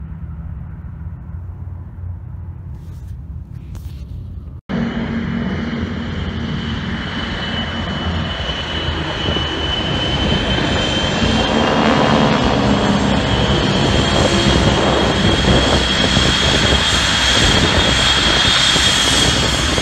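Distant drone of a four-engine propeller bomber. After an abrupt cut about five seconds in, it gives way to the louder drone of several single-engine propeller planes flying over in formation, growing louder as they pass.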